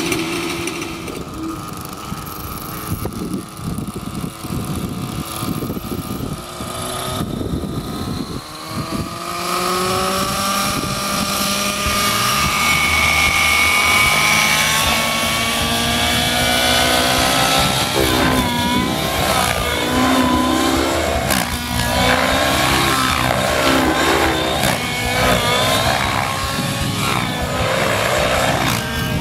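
YS 91 SRS two-stroke glow engine of an Align T-Rex 700N nitro RC helicopter, with its rotor. It idles roughly for the first several seconds, then winds up with a rising whine as the head spools up and runs steadily through a low hover. From about halfway on its pitch swings up and down over and over as the helicopter is flown hard, with the engine heavily loaded by wide-chord 64 mm blades at 13 degrees pitch.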